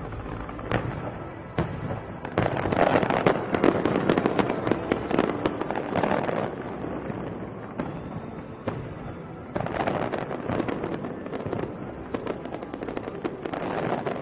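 Large fireworks display going off in fast, crackling volleys of sharp cracks. There are two dense spells, the first starting a couple of seconds in and the second about ten seconds in.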